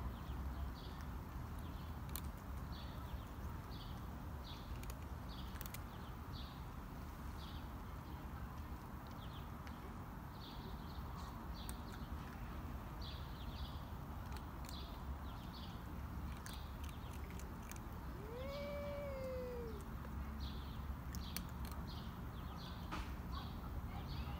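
A cat gives one drawn-out yowl, rising and then falling in pitch, about three-quarters of the way through: a warning call between two rival cats facing off.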